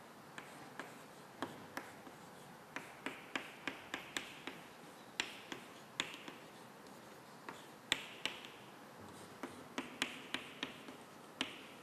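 Chalk writing on a blackboard: a string of irregular sharp taps as the chalk strikes the board, with short scratchy strokes between them.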